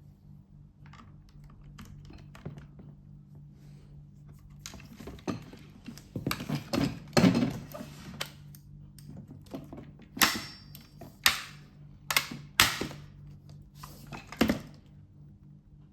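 Hard plastic clicks and knocks from handling and fitting together a robot vacuum's parts during reassembly. They come irregularly, sparse at first, then a busy run of taps and a few sharp single knocks in the second half.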